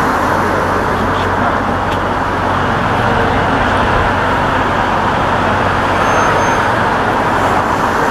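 Steady city traffic noise: a continuous hum of vehicle engines and road noise.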